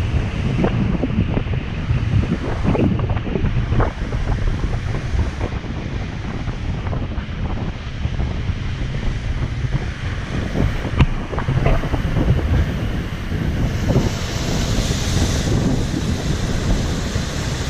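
Heavy surf crashing into a rocky sea inlet, with strong wind buffeting the microphone. A few sharper wave impacts stand out now and then.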